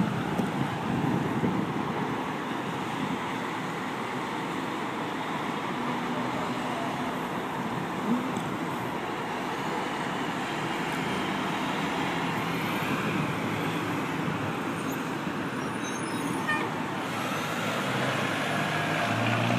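Steady traffic noise. In the last couple of seconds a fire department aerial ladder truck's engine grows louder as the truck pulls up close.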